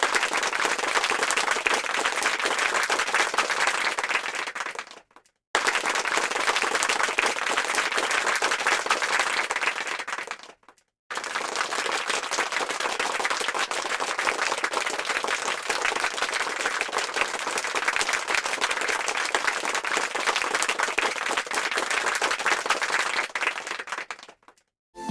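Applause sound effects: a crowd clapping, in three clips played back to back. The first two each fade out after about five seconds, and the last runs about fourteen seconds before fading out.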